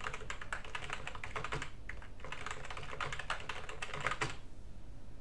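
Computer keyboard typing: rapid keystrokes in two runs, with a short break about two seconds in, stopping shortly before the end.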